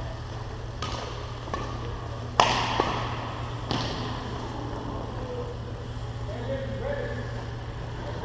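Badminton rackets striking a shuttlecock in a fast doubles rally: five or so sharp hits in the first four seconds, the loudest about two and a half seconds in, ringing on in the hall's echo. A steady low hum runs underneath.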